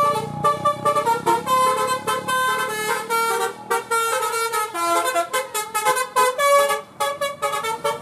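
A tour bus's basuri telolet horn plays a quick tune: a run of short horn notes stepping up and down, one after another.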